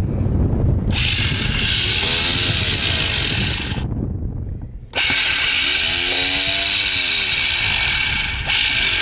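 Electric motor of a Quick anchor windlass run twice with its gearbox opened, each run about three seconds with a high whine. It spins the worm, but the gear whose teeth are worn away is not turned.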